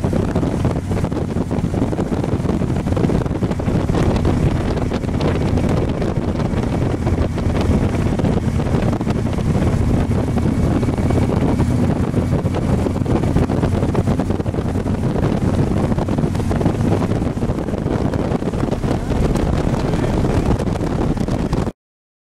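Steady wind rush on the microphone over a touring motorcycle's engine and road noise while riding at speed. The sound cuts out completely for under a second near the end.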